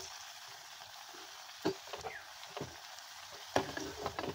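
Oil sizzling steadily as pieces of laddu dough deep-fry in an iron kadai, with three sharp clicks spread across the sizzle.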